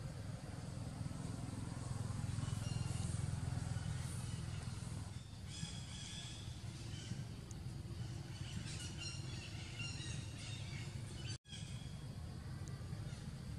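Outdoor park ambience: a steady low rumble with short high chirping calls scattered through the middle. The sound cuts out for an instant near the end.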